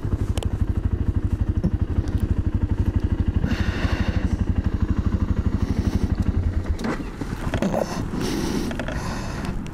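Single-cylinder engine of a BMW F650GS Dakar motorcycle idling with a fast, even thump, heard from the saddle. The engine stops about two-thirds of the way through, and rustling and clattering from the rider moving on the bike follow.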